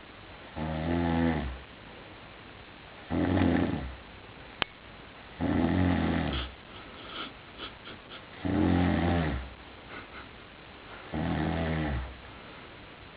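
Heavy snoring: five loud, rattling snores about a second long each, one every two and a half seconds or so. A single sharp click falls a little before the middle, and faint ticks come between the third and fourth snores.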